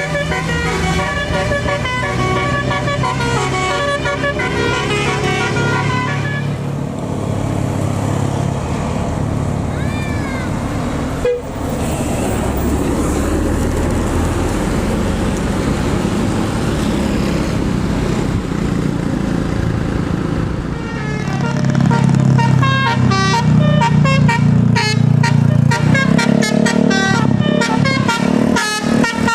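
A tour bus's multi-tone telolet horn plays a stepped melody for the first several seconds. Engine and road noise follow, then from about two-thirds of the way through the horn melody returns louder over a heavy engine rumble.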